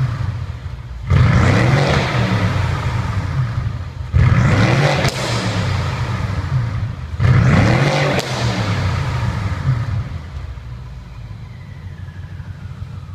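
BMW F10 550i's twin-turbo V8, fitted with a catless downpipe and a valved catback muffler whose valve is open, free-revved three times: each blip jumps in suddenly, then the pitch falls back. After the third it settles back to a quieter idle.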